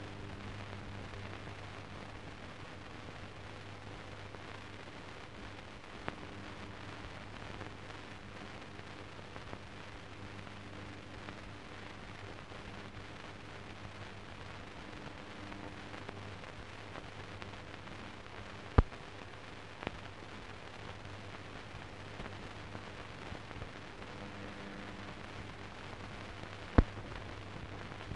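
Steady hiss and low hum of an old optical film soundtrack, with a few sharp pops, two of them loud, about two-thirds of the way through and near the end.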